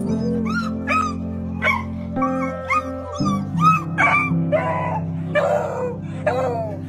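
A beagle whining and yelping excitedly as it jumps up to greet a man: short high cries that rise and fall, two or three a second, turning rougher and longer midway. Background music plays underneath.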